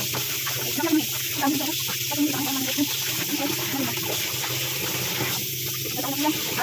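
Kitchen tap running into a plastic basin in a stainless steel sink, with water splashing and sloshing as raw pork is rinsed and turned by hand.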